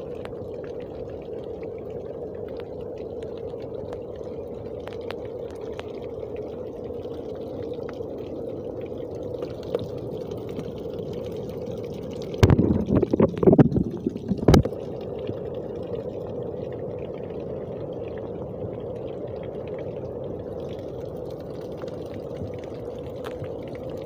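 Rainwater runoff pouring in a thin stream down a rock face and splashing, a steady pouring sound. About halfway through, a brief cluster of loud thumps lasts a couple of seconds.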